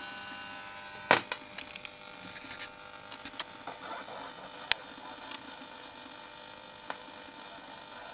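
Homebuilt shortwave receiver's speaker giving a low hiss with several steady faint tones running through it. Scattered sharp crackles and clicks punctuate it, the loudest about a second in.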